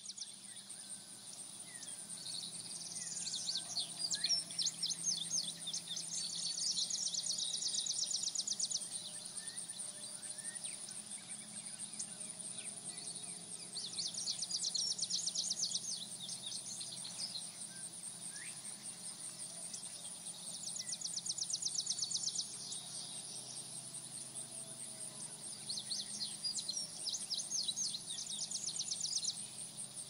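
Nature ambience: birds singing in bouts of fast, high trilled notes, four times over, above a steady high-pitched insect buzz, with a few fainter chirps between.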